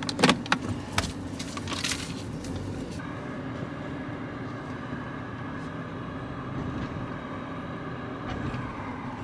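Car interior sound as the car creeps slowly forward: a steady engine and road hum. In the first two seconds there are several sharp knocks and clicks from the phone being handled.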